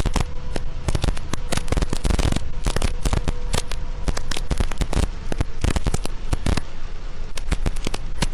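Heavy rain hitting a moving vehicle's roof and windshield: a dense, irregular crackle of drops that goes on without a break.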